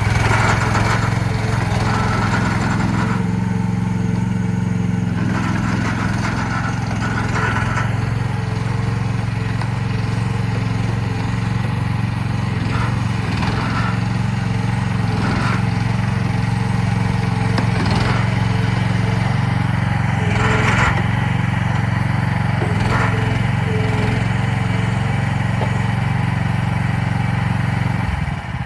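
Small diesel engine of a CFG H15R mini excavator running steadily, with short sharper noises every few seconds. The engine note drops slightly near the end.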